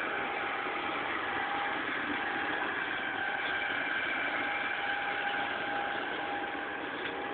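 Diesel engine running steadily, with a constant whine over its noise.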